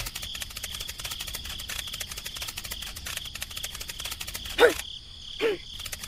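Cricket-like insect chirping: a fast, steady clicking trill with a high buzz, broken near the end by two short, louder rising squeaks about a second apart.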